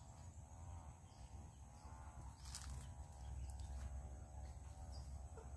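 Faint outdoor ambience: a distant animal gives wavering calls about once a second over a low rumble, with one short brushing noise about two and a half seconds in.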